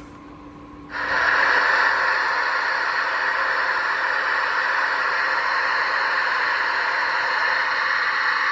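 Ranger RCI-X9 radio's receiver static from its speaker: a steady hiss that comes on suddenly about a second in as the radio is put on the air.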